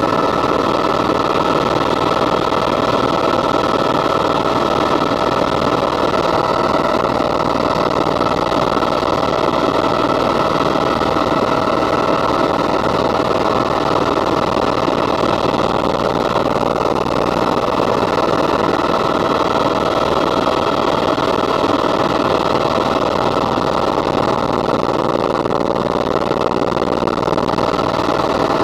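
Helicopter in cruising flight heard from inside the cabin: the steady, unbroken noise of the rotor and turbine engine, with a few steady whining tones running through it.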